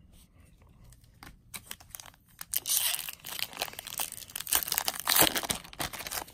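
Foil Magic: The Gathering booster pack wrapper being crinkled and torn open by hand. The crinkling starts about a second and a half in, with a sharp loud rip a little after five seconds.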